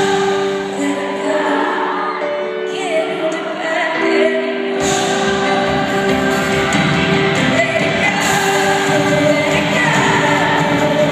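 Live pop music in an arena: a female singer with her band, heard through the hall's PA. The bass and drums drop out for a few seconds and come back in about five seconds in.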